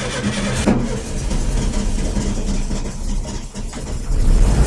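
An engine running at a steady idle, low and even, with a sharp click about a second in and growing louder near the end.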